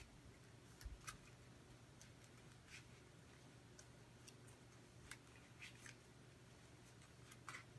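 Near silence: room tone with a faint steady low hum and a few faint, scattered clicks.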